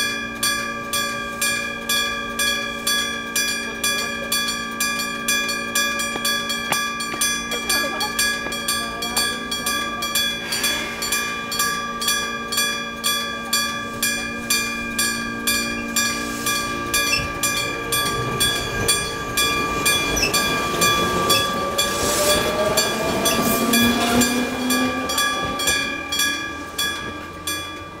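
Kyosan electric bell at a Japanese level crossing ringing in steady, even strokes. From about eighteen seconds in, a Matsumoto Electric Railway 3000 series train passes, its rumble building with a rising whine to a peak a few seconds later. The bell stops near the end.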